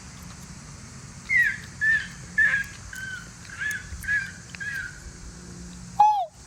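Person imitating bird calls by voice: a run of about eight short, high calls, roughly two a second, then a loud falling caw-like call near the end, with another just beginning.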